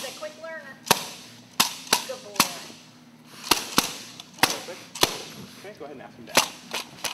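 A handheld bite-work training stick smacking repeatedly during a tug with a young dog: about ten sharp cracks, unevenly spaced, with short gaps between them.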